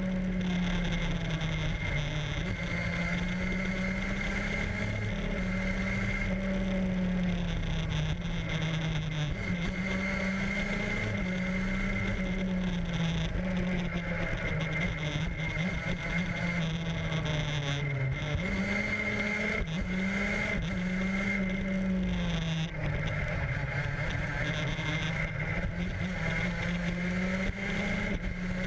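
Onboard sound of a vehicle's engine running at speed around a track, its pitch rising and falling with the throttle, dipping about two-thirds of the way through and then climbing again. A steady high whine and wind rush run underneath.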